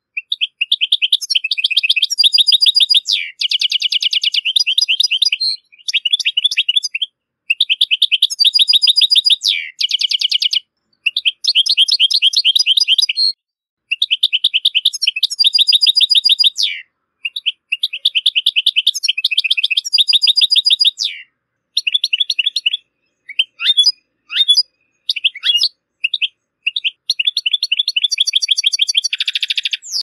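European goldfinch singing: rapid, tinkling twitters and trills in phrases of about two to three seconds, separated by brief pauses, with shorter broken phrases near the end.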